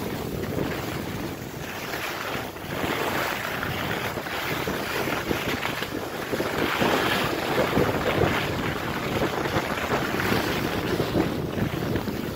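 Wind rushing over the microphone and skis hissing and scraping over groomed snow during a downhill run, swelling in loudness through the run.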